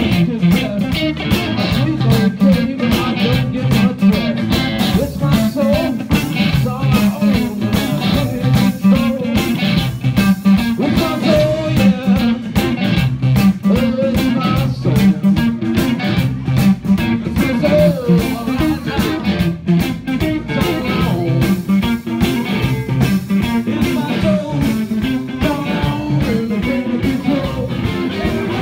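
Live blues band playing: electric guitar over a drum kit with steady drum hits throughout, recorded on a phone's microphone so the sound is rough.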